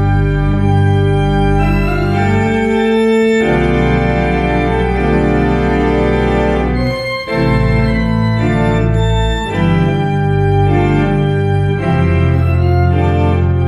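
A 90-year-old Möller pipe organ playing a piece on its own through its playback system: full sustained chords over deep pedal bass notes, changing every second or two, with a brief break about seven seconds in.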